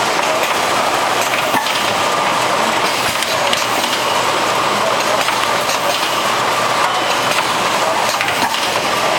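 Automated bottle-packaging line running: plastic bottles clattering against each other along a curved conveyor into an Omega Design packaging machine, a steady dense rattle with many small clicks and a faint steady whine.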